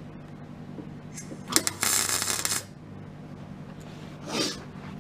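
MIG welder on a low setting laying a tack weld on the car's steel sill and wheel-arch lip: a loud crackling arc lasting about a second, starting a second and a half in, with a shorter, weaker burst near the end, over a steady low hum.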